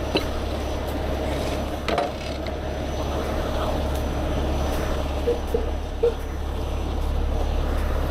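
Heavy rotator tow truck's engine running steadily while its steel winch cable is pulled out by hand, with a few light clicks about two seconds in and a couple of small knocks later.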